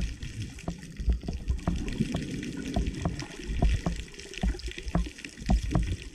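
Water moving around an underwater camera while snorkelling, with irregular muffled low thumps and scattered sharp clicks.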